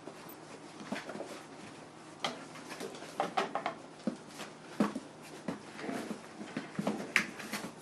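Month-old puppies moving about and playing: scattered light knocks, taps and scratches, getting busier from about two seconds in.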